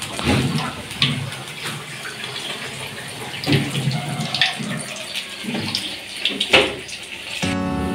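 Uneven scraping and rustling with scattered light knocks, the sound of hands working on a plastic toner cartridge; music starts near the end.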